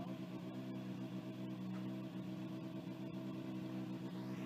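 Volkswagen Polo GTI R5 rally car's 1.6-litre turbocharged four-cylinder engine idling steadily.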